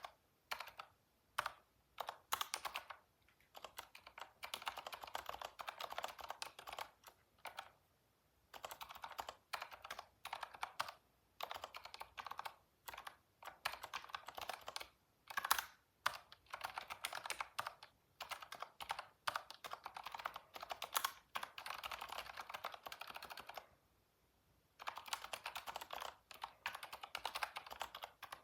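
Computer keyboard typing in fast bursts of key clicks, with short pauses between runs and a longer pause about eight seconds in and near the end.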